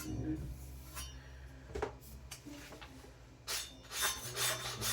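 Carbon-steel Chinese cleaver's edge scraped in short strokes against a hard surface to dull it: a few faint clicks, then a run of rasping strokes, several a second, starting about three and a half seconds in.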